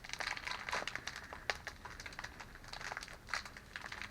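Packaging being handled as a small box is opened by hand: crinkling and rustling with scattered small clicks and taps.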